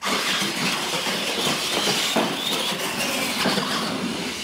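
Retro R/C monster trucks launching and running flat out down a drag track: a sudden start into a steady whine and rattle of electric motors, gearboxes and tyres on concrete, with a few sharp knocks partway through as the trucks hit the wooden ramps.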